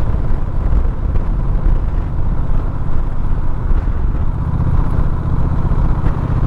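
Motorcycle engine running at an easy, steady pace while riding slowly up a winding mountain road, with a dense low rumble. The engine note evens out about two-thirds of the way through.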